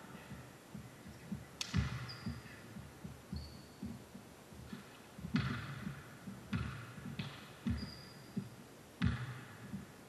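Basketball game play on an indoor court: a basketball bouncing and footsteps thudding in a steady run of low thumps, with several sharper bangs that echo in the hall and a few short, high sneaker squeaks.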